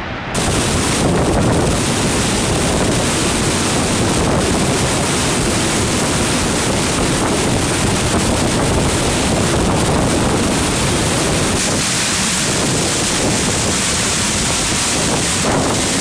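Large waterfall rushing: a loud, steady wash of falling water. It jumps louder and brighter about a third of a second in.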